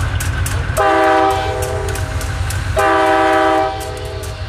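Diesel locomotive's multi-chime air horn sounding two blasts of about a second each, one about a second in and one near three seconds in, over a steady low rumble.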